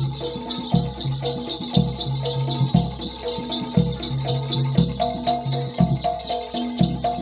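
Jaranan Dor ensemble music: a big jidor bass drum struck about once a second under a repeating pattern of pitched percussion notes, with a steady high jingling rattle on top.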